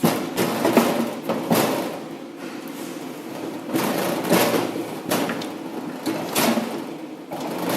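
Scraping, sliding and knocking of a water recovery pump and its motor being worked out of a metal mounting frame, in several separate rough bursts.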